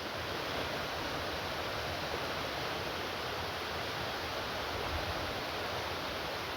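Steady rushing of a creek's waterfall and small cascades, an even noise with no breaks.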